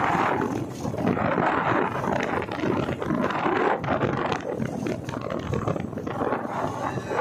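Wind buffeting the microphone on a moving motorcycle: a rough, gusting rush of noise that swells and dips throughout.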